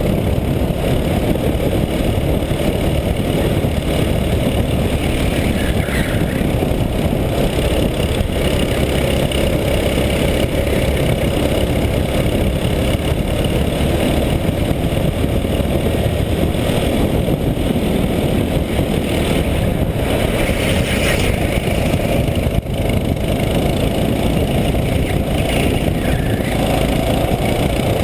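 Go-kart engine running hard through a lap, heard up close from a camera mounted on the kart, its note rising and falling a little with the corners.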